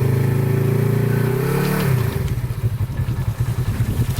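Off-road vehicle engine held at steady high revs that rise slightly and then fall away about two seconds in to a lower, rougher running, while trying to drive a stuck buggy out of swamp mud.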